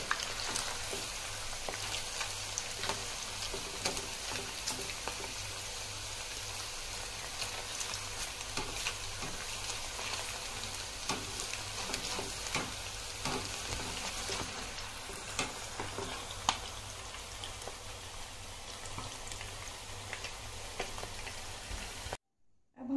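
Marinated chicken strips deep-frying in hot oil in a kadai: a steady sizzle with many small pops and crackles as a metal spider ladle stirs the pieces. The sound cuts off suddenly just before the end.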